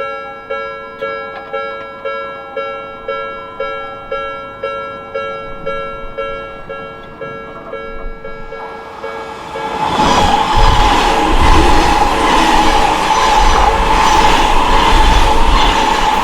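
Japanese level crossing alarm bell ringing in even strokes about twice a second, then an Odakyu Odawara Line train passes through the crossing, a loud rushing rumble that swells in from about nine seconds in and covers the bell.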